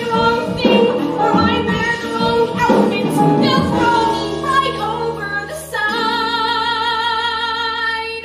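A woman singing a dramatic musical-theatre ballad over sustained accompaniment. About six seconds in she holds one long note with wide vibrato, and it cuts off suddenly at the end.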